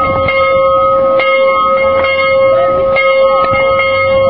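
Rope-rung church bell ringing, its tone held steady and renewed by fresh strikes every second or so.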